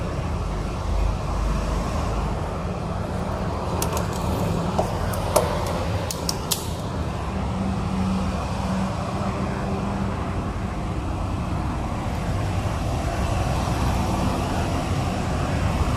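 Steady background rumble like road traffic. A handful of sharp clicks come between about four and seven seconds in, as the plastic brush-seal strip is handled.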